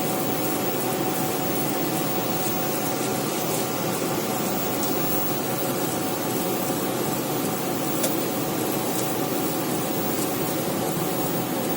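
FDM 3D printer running mid-print: a steady whir from its cooling fans and stepper motors, with a thin steady tone and a few faint ticks.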